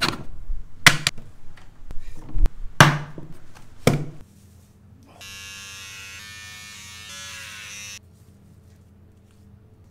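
A drawer and its contents being handled, with several sharp knocks and clicks over the first four seconds. Then a can of shaving gel dispenses with a steady, buzzy hiss for about three seconds and cuts off.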